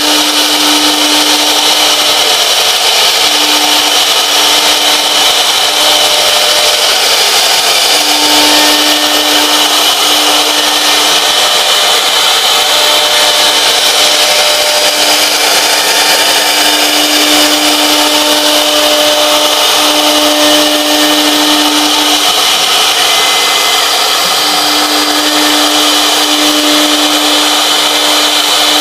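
CNC router spindle cutting grooves into an MDF board: a steady high whine over the hiss of the bit in the wood, with a lower hum that comes and goes every few seconds.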